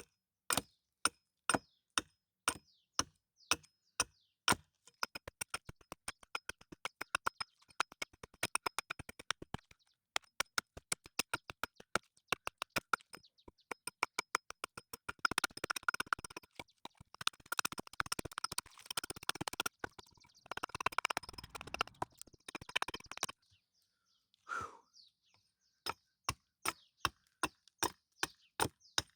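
Repeated sharp strikes of a hand tool on wood, about two a second, quickening to a fast run for a few seconds about a fifth of the way in. Stretches of rougher scraping follow around the middle, then the steady strikes resume near the end.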